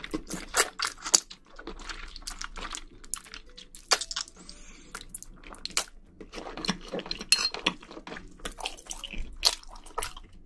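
Close-miked eating of wide Chinese glass noodles (dangmyeon): wet slurps and chewing smacks in quick runs, with a short lull partway through.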